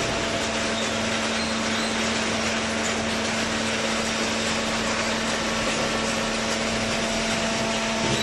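Paper baler machine running: a steady mechanical hum with a constant low tone over dense machine noise.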